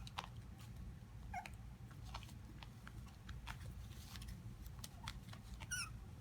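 Five-week-old Havanese puppy whining for attention: two short high-pitched cries that fall in pitch, one about a second and a half in and one near the end, with faint scattered clicks between them.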